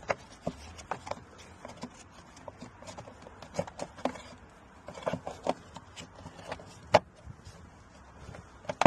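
Plastic battery cover being handled, fitted and pressed shut: a run of irregular clicks and knocks, with a sharp knock about seven seconds in and another near the end as it closes.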